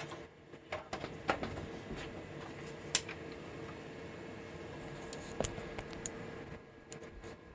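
Compaq Prolinea 4/25S desktop PC running with its case open: a steady fan hum, with a few sharp clicks and knocks from handling, and the hum drops a little near the end.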